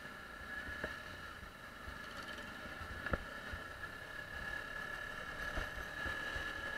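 Yamaha WR125R's single-cylinder engine running quietly as the motorcycle rides over a cobblestone road, with a light knock about a second in and another about three seconds in.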